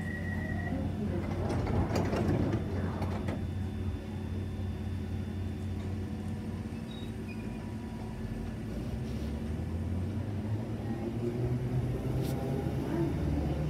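London Underground 1972 Stock train at a platform: a steady high tone stops about a second in, then the sliding doors shut with a clatter of knocks. The train hums steadily, and near the end its motor sound begins to rise as it starts to pull away, with a sharp click just before the end.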